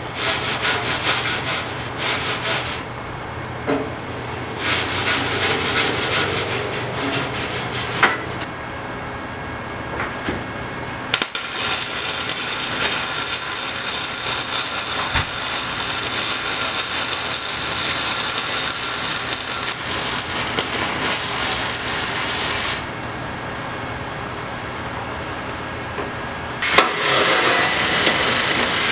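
Titanium Flux 125 flux-core wire welder laying beads, its arc crackling in several bursts, the longest about ten seconds, over a steady low hum. Near the end a different steady noise with a high whine starts.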